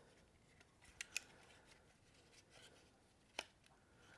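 Faint rubbing and a few sharp clicks of hard plastic as a new rope rotor is seated into a Husqvarna 450 Rancher chainsaw's recoil starter housing: two clicks about a second in and one more later on.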